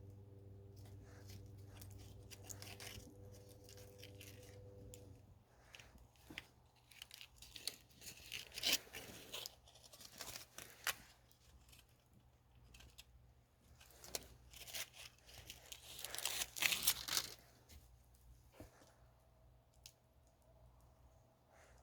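Campfire crackling: irregular snaps and crackles of burning wood, coming in two denser clusters, over a faint low hum that stops about five seconds in.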